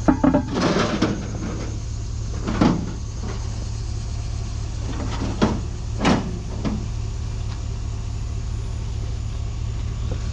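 A vehicle engine running steadily, with a few sharp clunks and knocks of scrap being handled, the loudest near the start.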